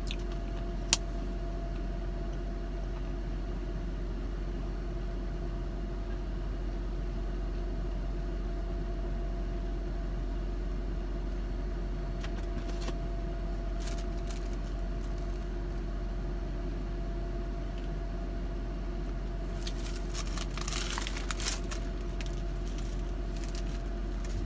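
Car engine idling inside the cabin, a steady hum. A sharp click comes about a second in, and short clicks and rustles follow near the end.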